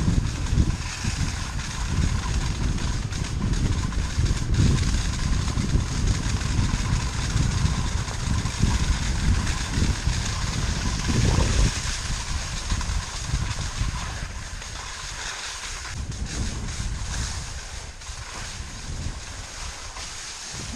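Wind buffeting the microphone of a camera moving fast downhill over snow, a gusty low rush that eases off after about sixteen seconds.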